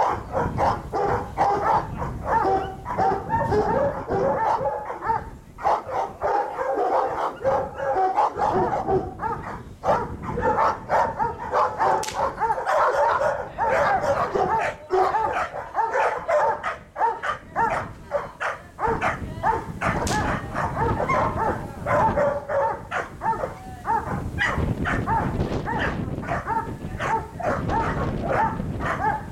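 Dogs barking in a rapid, near-continuous string of sharp barks.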